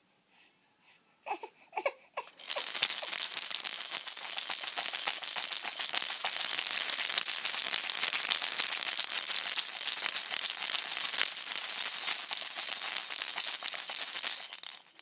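A baby gives a few short whimpers, then an Infantino baby rattle is shaken steadily for about twelve seconds, a dense, fast clatter that stops just before the end.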